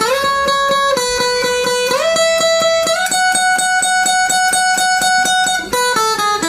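Guitar music: a held melody note that slides up in pitch a few times, over a quick, even plucked rhythm.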